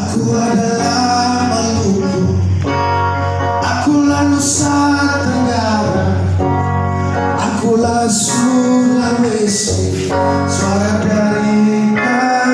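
A song: a man singing a melody over guitar accompaniment with a steady bass.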